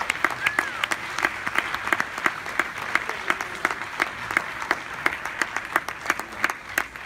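Audience applauding in a large hall: a steady wash of clapping, with one nearby pair of hands standing out in sharp, even claps about three a second.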